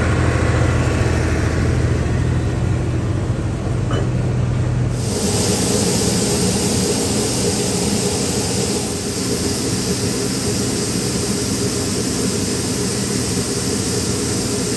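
Engine running steadily: a strong low hum at first, then about five seconds in a sudden change to a brighter, hissier running sound with steady tones on top.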